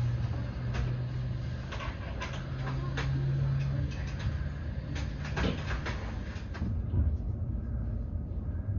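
Inside a passenger train carriage as the train pulls away from the station: a low steady hum, with scattered sharp clicks and knocks through the first two thirds.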